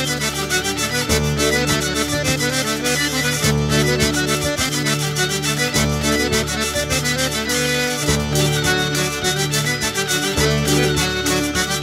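Instrumental background music: a melody in held notes over a bass line that changes every second or two.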